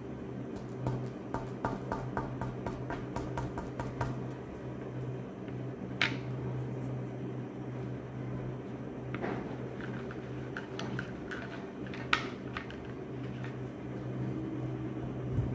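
Cotton buds dabbing paint onto paper on a tabletop: a run of quick soft taps, with sharper single clicks about six and twelve seconds in, over a steady low hum.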